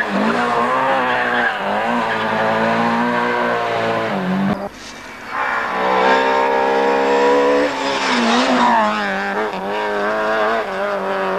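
Peugeot 306 Group A rally car's two-litre four-cylinder engine at full racing revs, its pitch climbing and dropping with throttle and gear changes. The sound breaks off briefly about four and a half seconds in, then comes back as the car approaches, with a gearshift drop in pitch a few seconds later.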